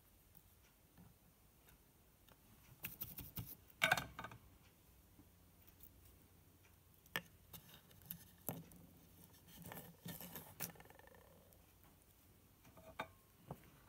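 Scattered small clicks, taps and rustles of a Teensy 3.2 board and its Dupont jumper wires being handled on a wooden workbench, with the busiest cluster about four seconds in.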